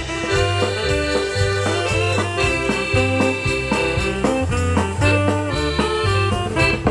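Live German oompah band playing: accordion leading, with saxophone and trumpets over a pulsing bass and a drum-kit beat.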